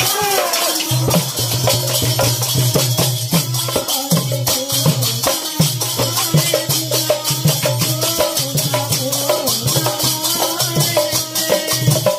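Devotional nama sankirtan music: two-headed barrel drums (mrudanga) beaten in a fast, driving rhythm under a constant clash of hand cymbals, with a melody line above them.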